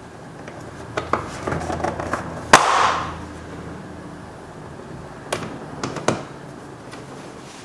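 Sharp plastic clicks and knocks from a car's interior door trim being handled and fitted, with one much louder knock about two and a half seconds in that rings briefly, and a few more clicks near the end.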